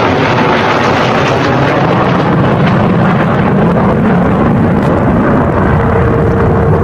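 Jet engine noise from a formation of four Sukhoi Su-57 fighters flying past: a loud, steady rumble that turns duller after about two seconds as the jets move away.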